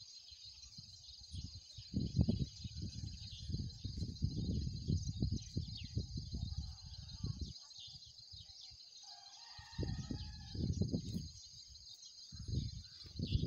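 Steady, high-pitched chorus of crickets and other insects, broken by irregular low rumbles of wind buffeting the microphone that come and go.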